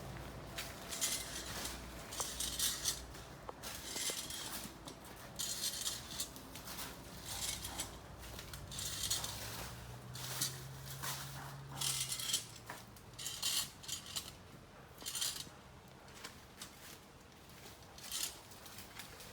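Metal coconut-tree climber clinking and scraping against the trunk in short repeated bursts, about one a second, as it is worked up the tree step by step; the bursts thin out and grow fainter near the end.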